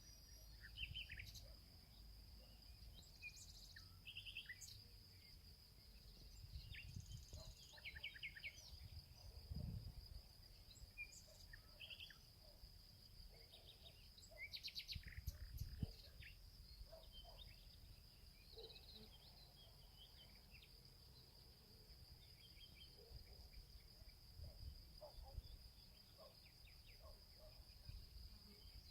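Faint forest ambience: small birds chirping and trilling on and off over a steady high-pitched whine, with a low rumble underneath.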